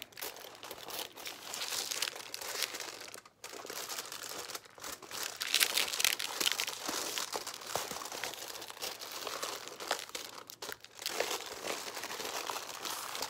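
Thin, generic-brand aluminium foil crinkling as it is wrapped and pressed by hand around a cardboard tube, with a brief lull about three seconds in.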